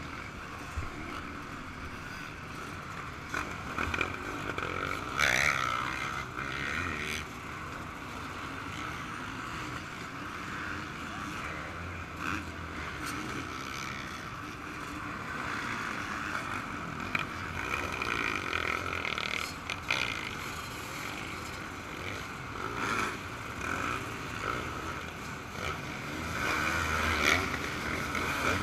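Yamaha YZ125 two-stroke motocross bike running under way, muffled, with a steady rush of noise and several brief knocks and scrapes.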